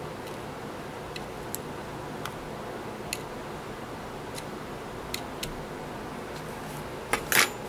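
A thin hand tool ticking and scraping against a diecast metal toy van body: a handful of light, scattered clicks, then a louder scratchy clatter near the end.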